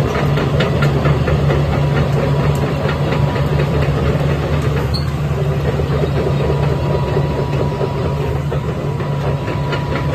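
Hitachi ZX350 tracked excavator's diesel engine running steadily at an even speed.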